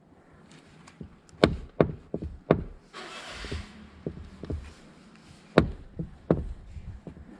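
Sharp knocks and clicks of hands and tools working on a car door, about eight of them at uneven intervals, with a short rustling hiss about three seconds in.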